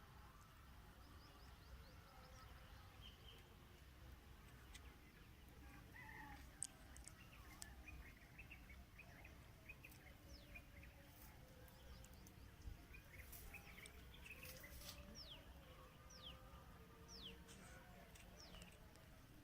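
Faint outdoor rural ambience with birds chirping: many short calls that sweep downward in pitch, growing more frequent about halfway through, over a low rumble.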